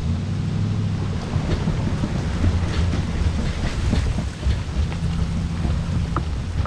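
Pickup truck towing a small boat on its trailer up a launch ramp, heard from on the boat: a low engine hum and road rumble, with scattered rattles and clicks of the boat and trailer and wind buffeting the microphone.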